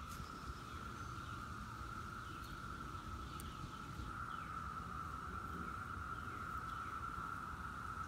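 Chorus of thousands of 17-year periodical cicadas singing together: a steady, even drone held at one pitch.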